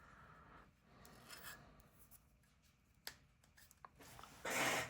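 Faint hand-handling of Zippo lighters and their tags and packaging: soft rubbing and rustling, a single sharp click about three seconds in, and a louder half-second rustle near the end.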